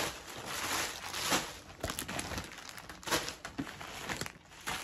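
Packaging rustling and crinkling in irregular bursts, with a few sharper crackles, as items are pulled out of a shipping package.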